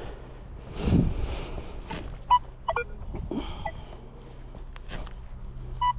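A spade cutting a plug out of turf and soil, with a noisy push about a second in and scattered knocks and scrapes. A few short, sharp pitched chirps stand out over it.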